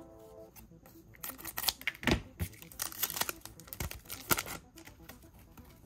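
A trading card pack's wrapper being torn open and crinkled, with irregular sharp crackles and rips as the cards are handled.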